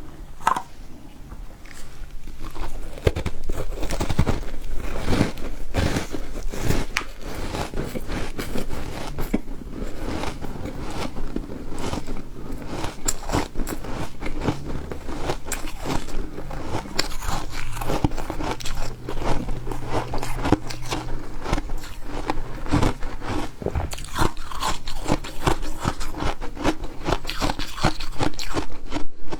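Refrozen ice being bitten and chewed: dense, continuous crunching with many sharp cracks.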